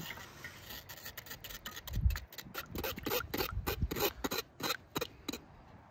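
A metal spoon scraping against a stainless wire-mesh sieve in quick repeated strokes, about three a second, working meat stock through the mesh. There is one dull thump about two seconds in.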